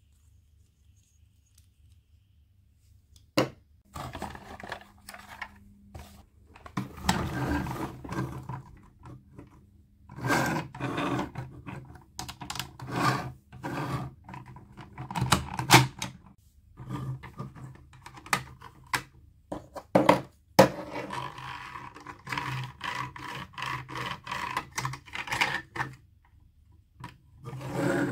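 Plastic toy packaging being handled and opened by hand: irregular crinkling, scraping and sharp clicks, starting about three seconds in after near silence.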